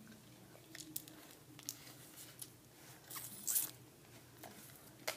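Faint rustling and light clicks of things being handled close to the microphone, with a louder rustle about three and a half seconds in.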